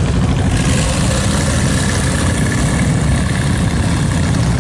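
Car engine sound effect, running steadily with a heavy low rumble.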